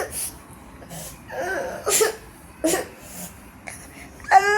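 Sleeping Shih Tzu's snoring: short snorty, wheezy breaths about every half second to a second. Near the end a loud high-pitched wavering cry breaks in.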